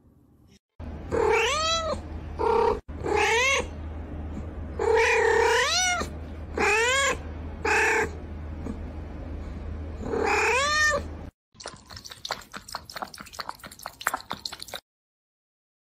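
A tabby cat meowing loudly and repeatedly: about eight calls, most of them rising and then falling in pitch, over a low steady hum. After the calls end, about eleven seconds in, a quick run of small clicks and taps follows.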